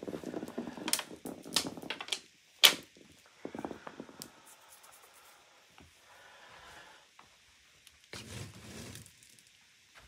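Small pellets scattered by hand onto carpet: a run of sharp clicks and ticks in the first few seconds, the loudest about two and a half seconds in, then some rustling and handling noise.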